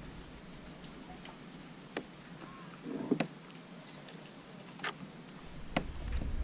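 DSLR camera shutter firing single frames: a handful of sharp separate clicks, a second or more apart. A low rumble starts to rise near the end.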